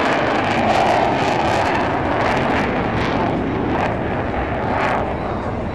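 Jet engine of a Thunderbirds F-16 Fighting Falcon at high power as the fighter climbs away overhead: a loud, steady rushing noise shot through with crackle, easing slightly near the end.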